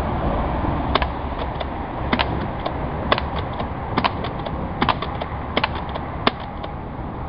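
UTG M3 spring-powered pump-action airsoft shotgun being pumped and fired over and over: a run of sharp clacks, some in quick pairs, about one every half second to a second.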